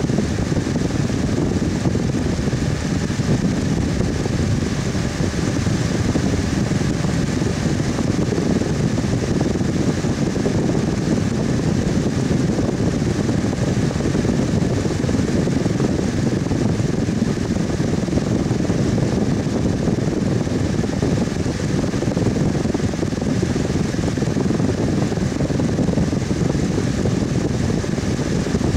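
Electric fan running steadily, a constant low whooshing hum with no change in speed.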